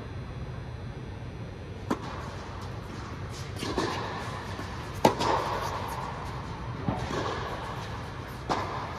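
Tennis balls struck by racquets in a rally: four sharp pops between a second and a half and three seconds apart, the loudest about five seconds in, over a steady low hum.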